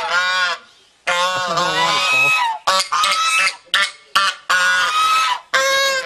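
Domestic Chinese geese (the domestic form of the swan goose) honking loudly in a rapid series of nasal honks, some long and some short, with a brief pause about a second in.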